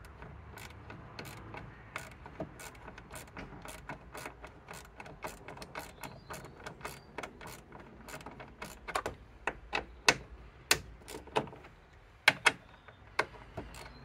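Socket ratchet clicking in a steady run of about three clicks a second as it undoes the 10 mm bolts on the back of a bonnet latch; the clicks grow louder near the end.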